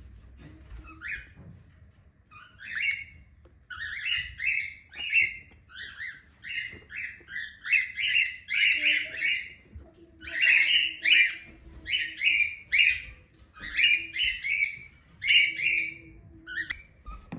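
Cockatiel calling over and over, a string of short, loud chirping calls at about two a second.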